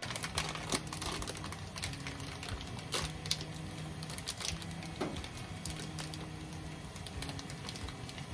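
Irregular light clicks and taps of kitchen utensils at work, over a low steady hum.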